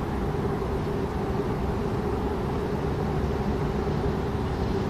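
Steady low rumble with a constant hum underneath, unchanging and with no distinct knocks or other events.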